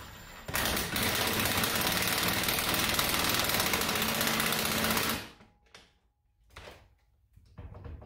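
Cordless impact driver hammering a lag screw into wooden framing, running for about four and a half seconds and stopping suddenly. A few light knocks follow.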